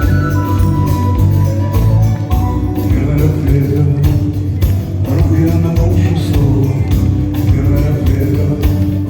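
Rock band playing a song live, with guitar over a steady beat.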